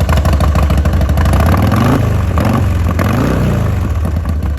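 Harley-Davidson Sportster 1200C's air-cooled V-twin running just after starting, loud, with two quick throttle blips about two and three seconds in, each rising and falling in pitch.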